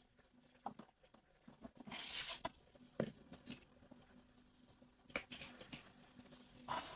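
Metal spatula sliding under crisp sagu keju cookies on a paper-towel-lined tray. There is a short scraping rustle about two seconds in, then several light clicks and taps.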